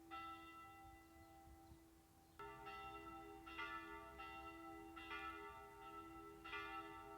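Church bell tolling faintly, rung as a call to prayer. One strike near the start, then after a pause of about two seconds, strikes about every second and a half, each left ringing on.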